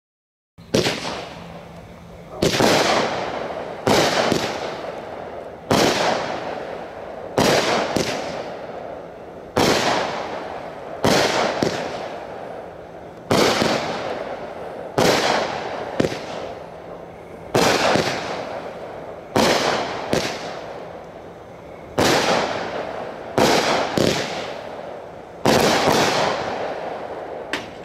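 A Cutting Edge "Dawg Tired" 16-shot 200-gram consumer firework cake firing its shots one after another, about one every one and a half to two seconds. Each shot is a sharp bang followed by a fading hiss from the burst.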